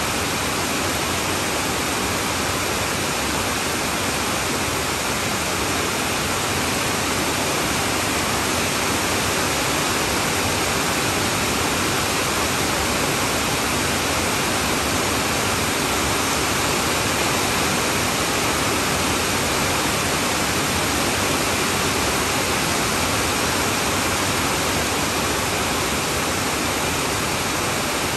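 Heavy rain falling steadily on a tin roof: a dense, even rush of noise that neither builds nor lets up.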